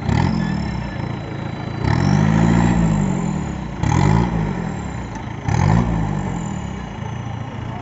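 Off-road 4x4's engine revved four times, the pitch climbing and falling back each time, with the longest rev about two seconds in; the engine runs at a lower, steady note between revs.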